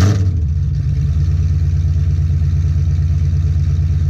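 Pontiac Firebird's engine and exhaust settling from a short rev right at the start into a steady, low, pulsing idle, just after a start-up.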